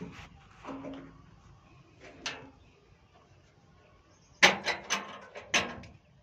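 Sharp clicks and knocks from handling test leads, plugs and terminals on a railway signalling terminal rack: a couple of single clicks, then a quick cluster of loud clicks and knocks about four and a half seconds in.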